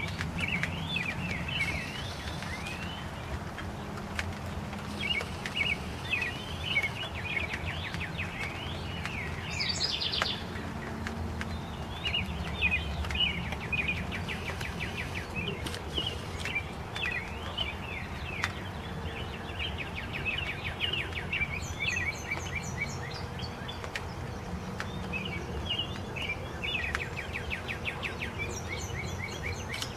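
Small birds chirping in short, quick repeated phrases throughout, over a steady background noise of light rain falling during a sunshower.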